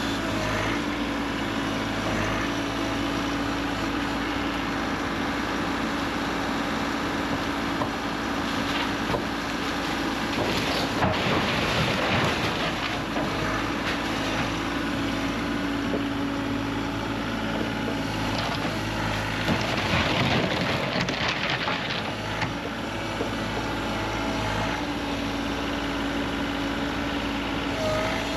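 Heavy equipment's diesel engine running steadily during shed demolition, with two spells of louder crashing from debris being broken and moved, about eleven and twenty seconds in.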